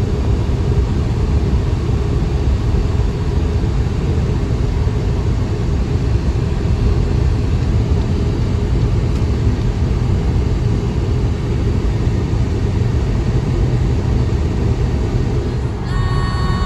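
Steady low rumble of road and tyre noise heard inside a car's cabin at motorway speed. About a second before the end, music with a few held notes comes in.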